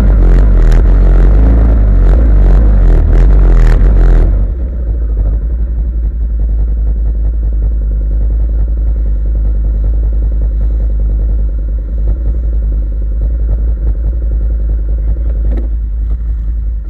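Off-road vehicle engine running hard with a rough clatter for about four seconds, then dropping suddenly to a steady, lower running.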